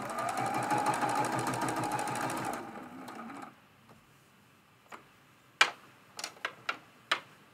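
Domestic sewing machine stitching a seam at speed, its motor rising in pitch as it gets going, then stopping about two and a half seconds in. In the second half comes a short run of about five sharp clicks, the first the loudest.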